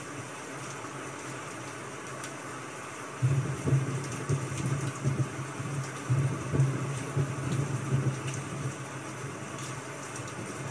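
Steady rain ambience, an even hiss with faint scattered ticks. From about three seconds in until near the end, an uneven low rumble swells and fades over it.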